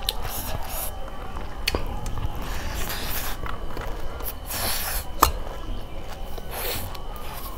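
Hand-eating sounds: fingers squishing and mixing rice with curry against a steel plate, with a few sharp clicks, the loudest about five seconds in. Near the end come the wet mouth sounds of a handful being eaten.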